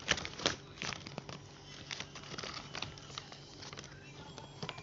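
Plastic packaging crinkling, with irregular small clicks and knocks as packaged toys are handled, loudest at the very start.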